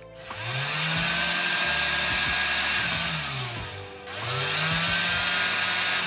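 Small DC motor and fan of a Clatronic AKS 828 cordless car vacuum, run from a bench power supply at 4 volts: it spins up with a rising whine, runs for about three seconds, winds down, and is started again just after. The motor is working.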